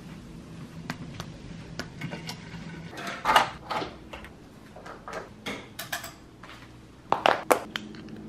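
Window blinds being pulled shut on their cord: a run of clicks and clatters from the slats, loudest about three seconds in and again twice near seven seconds, over a faint steady hum in the first few seconds.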